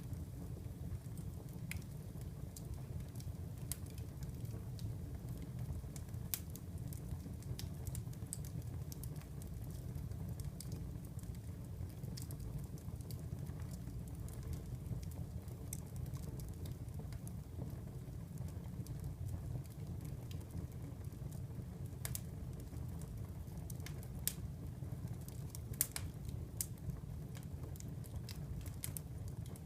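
Wood fire crackling in a fireplace: scattered sharp pops and snaps over a steady low rumble of the flames, with a few louder pops near the end.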